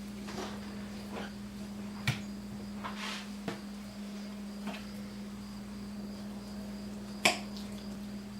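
Sharp knocks and clicks of a knife on a cutting board while meat is trimmed from a chicken carcass, with a short scrape about three seconds in; the two loudest knocks come about two seconds in and near the end. A steady low hum runs underneath.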